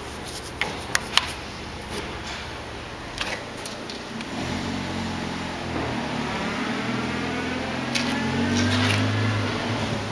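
A few sharp clicks about a second in, then a motor vehicle engine humming steadily from about four seconds in, growing a little louder.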